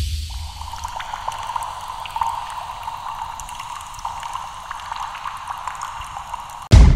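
Motion-graphics sound effect: a steady crackling hiss over a held mid-pitched tone, then a loud sudden hit near the end that rings out.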